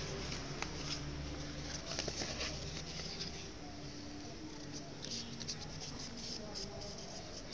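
Sheet of origami paper rustling and crinkling in the hands as it is creased and folded: short, crisp ticks, bunched about two seconds in and again later. Underneath runs a steady low hum.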